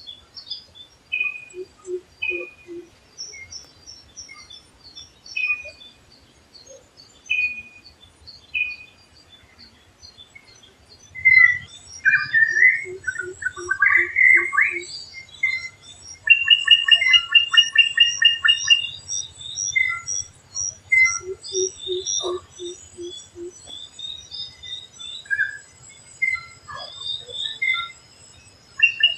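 Several wild birds calling and singing together, with many high chirps and whistles. About a third of the way in comes a loud tangle of calls, then a fast run of repeated notes. A short series of low, evenly spaced notes is heard three times.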